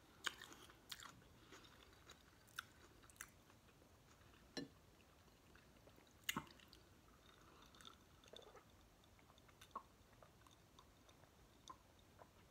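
Faint, close-up mouth sounds of a person chewing a sandwich, with scattered sharp wet clicks, then sipping an iced soda from a glass. A few clicks and knocks stand out, the loudest about halfway through.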